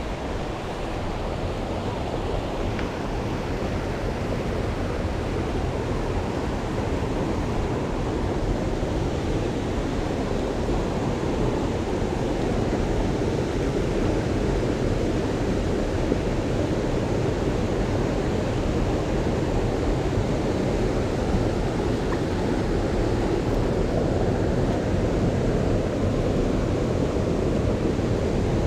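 Fast-flowing mountain stream rushing steadily, a loud, even noise of water weighted toward the low end.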